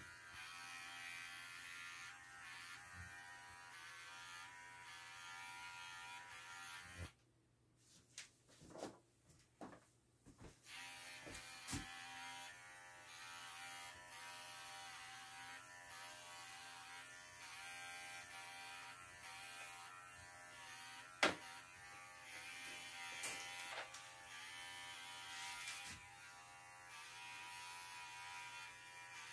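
Cordless pet grooming clippers buzzing steadily as they shave a poodle's leg hair against the growth. The buzz drops out for a few seconds about a third of the way in, with a few light clicks, then runs on.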